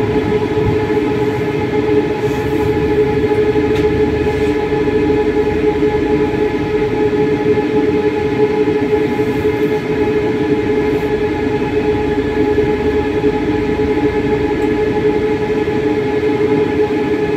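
Moderus Beta MF20AC electric tram running, a steady whine of several even tones from its electric drive over continuous wheel-on-rail rumble.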